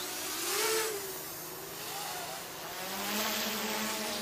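Eachine EX2 Mini quadcopter's brushless motors whining in flight, the pitch gliding up and down as the throttle changes in fast high-rate flying.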